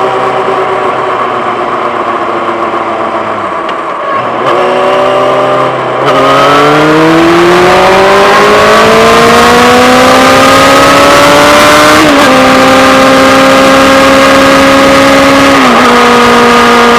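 Yamaha FZ6-N's 600 cc inline-four through a Two Brothers aftermarket exhaust, heard from a microphone under the seat. It runs steadily, drops in pitch about four seconds in, then opens up louder with engine speed climbing for several seconds. There is a short dip in pitch about midway and another near the end, like upshifts.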